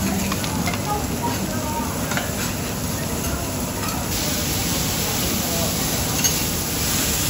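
Food sizzling on a steel teppanyaki griddle, with metal spatulas scraping and clicking on the plate as the food is turned and stirred. About four seconds in the sizzle turns brighter and hissier.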